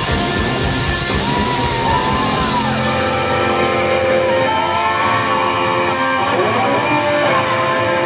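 Live rock band of electric guitar, bass guitar and drum kit playing loudly. About three seconds in the drums and cymbals drop out, leaving sustained electric guitar notes with bending, sliding pitch.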